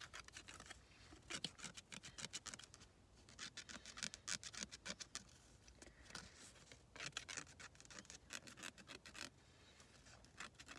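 Faint scratching of a scratch-off lottery ticket's coating: quick rasping strokes in several short spells separated by pauses.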